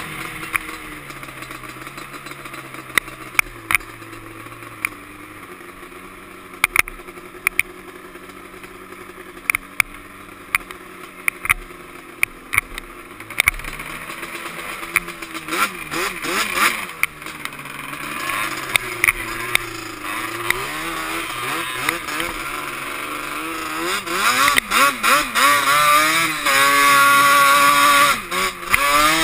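Yamaha Banshee quad's twin-cylinder two-stroke engine heard from on board while riding, its pitch rising and falling with the throttle, with scattered sharp knocks. It gets louder and revs hard for the last few seconds.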